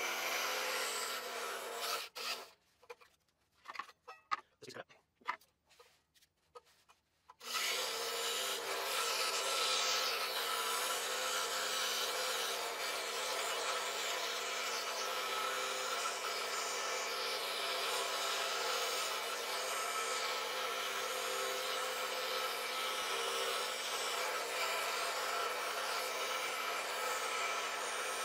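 Scroll saw running, its blade cutting through a fabric-covered wooden panel with a steady rasping buzz. About two seconds in it drops to near silence for about five seconds, with a few faint clicks, then the cutting resumes steadily.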